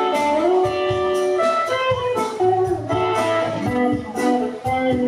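Live blues band playing an instrumental passage led by guitar, with sustained, bending notes over a steady drum beat.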